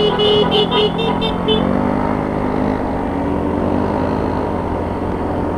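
Motorcycle horn tapped in a rapid string of short beeps for about the first second and a half, the riders' greeting as groups pass each other. The motorcycle's engine and road noise run steadily underneath, the engine note rising as it picks up speed after the beeps.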